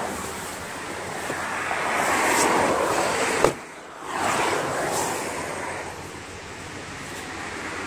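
Rushing noise of wind on the microphone and passing road traffic, swelling and fading twice, with a sharp click about three and a half seconds in as the van door opens.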